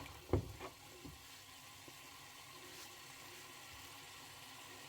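Green beans cooking in an uncovered pan, giving a faint, steady sizzle. Two light knocks sound in the first second.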